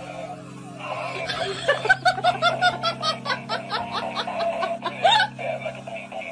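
Laughter in a quick run of short bursts over background music, from about two seconds in to about five seconds in.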